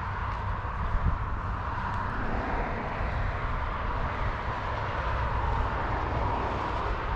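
Steady hum of distant engine traffic over a low, even rumble, with no distinct events.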